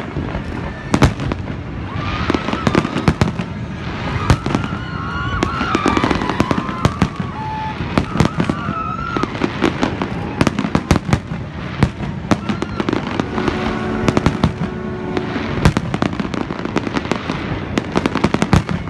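A fireworks display: a dense, continuous barrage of shells bursting and crackling in quick succession. Some wavering pitched sounds run through the first half, and a steady pitched tone sounds for about two seconds in the second half.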